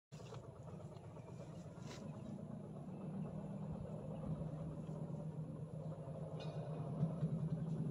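A motor vehicle's engine humming steadily, growing slightly louder toward the end, with a couple of faint clicks.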